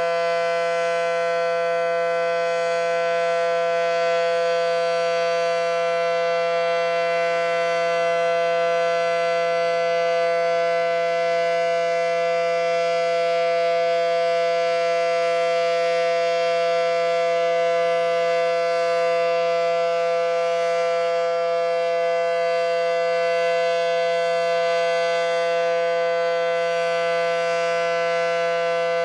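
Federal Signal SD-10 tornado warning siren running at full speed, holding a steady two-note chord with no rise or fall in pitch or loudness.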